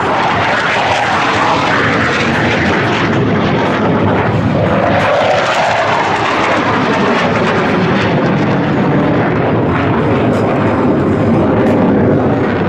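Blue Angels F/A-18 Hornet jets flying past overhead: a loud, steady jet roar whose pitch sweeps and wavers as the aircraft pass.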